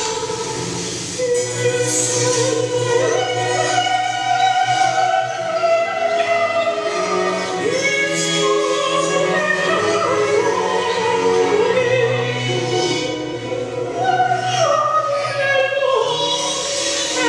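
Operatic music: sung voices with classical accompaniment, the held notes wavering with vibrato.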